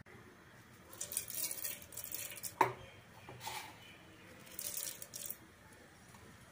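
Fenugreek seeds dropped into hot oil in a metal pot: a few short bursts of rattling and sizzling, with one sharp tap about two and a half seconds in.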